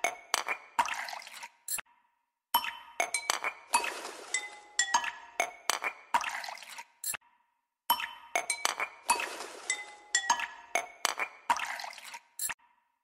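Metal ladle clinking and scraping against the sides of an aluminium pressure cooker while stirring chickpeas: quick runs of sharp clinks with a ringing tone, broken by two or three brief silences.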